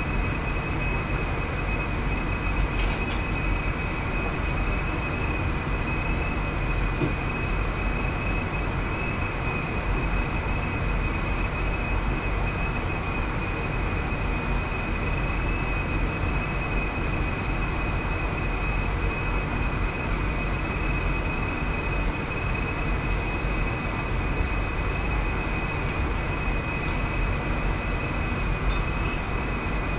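Commercial kitchen ventilation running: a steady rushing noise with a constant thin high whine, and a few faint clicks of utensils.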